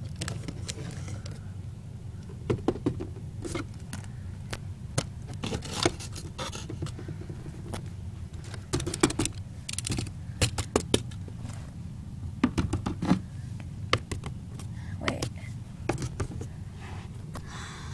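Small plastic toy figures and toy furniture being picked up and moved by hand: scattered clicks, taps and scrapes, some in quick clusters, over a steady low hum.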